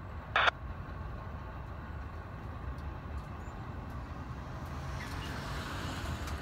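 Low steady rumble of a freight train rolling away down the track. Two brief sharp sounds come near the start, the second louder, and a faint hiss builds from about five seconds in.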